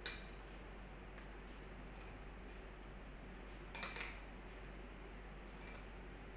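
A metal spoon clinking and scraping against glass bowls as curd raita is spooned into a small glass serving bowl: a few light, scattered clinks, the loudest cluster about four seconds in.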